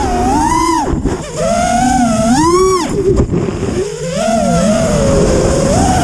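FPV racing quadcopter's brushless motors (T-Motor F40 III 2600 Kv) whining, the pitch swooping up and down as the throttle is punched and cut. There are short throttle-off dips about a second in and again near four seconds, with rushing air noise underneath.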